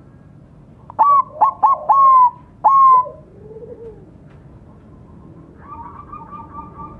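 Zebra dove (perkutut) cooing: about a second in, a burst of loud, clear whistled notes that ends with lower, softer falling notes. Near the end a quieter rapid trill of short notes starts.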